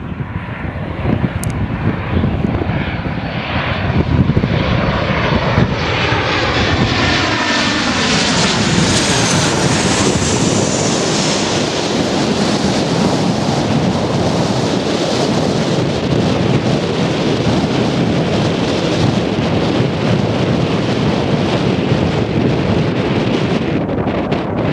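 Airliner engines passing close by: the sound sweeps and swells over the first ten seconds, then holds as a steady, loud rumble.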